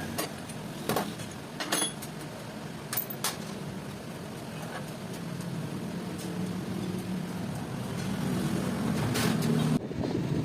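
A steady low machine hum in a workshop, with a few sharp metallic clicks and taps: about a second in, near two seconds, twice around three seconds and once about nine seconds in. The sound changes abruptly just before the end.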